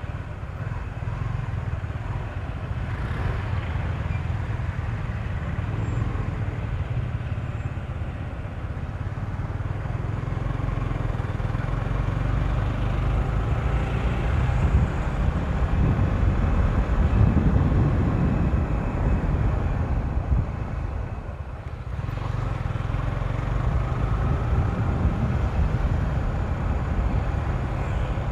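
A motorcycle ridden at speed on a top-speed run: a steady engine and rushing noise. The sound grows to its loudest a little past halfway, dips briefly near three-quarters through, then builds again.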